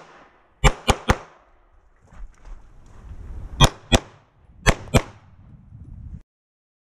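Handgun shots fired in quick strings: three rapid shots about a second in, then two pairs of shots a second apart in the second half, the shots in each pair about a third of a second apart.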